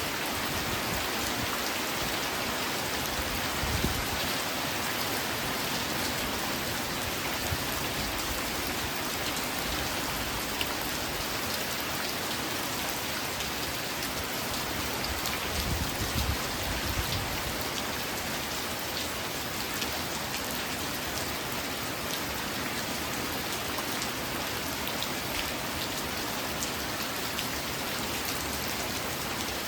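Steady rain falling on a surface, an even hiss with scattered drop ticks. A few brief low thumps stand out, one near the start and a short cluster around the middle.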